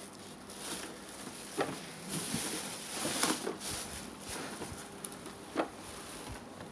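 Plastic wrapping crinkling and rustling as it is pulled off a new air cooler, with a few light knocks from handling the unit.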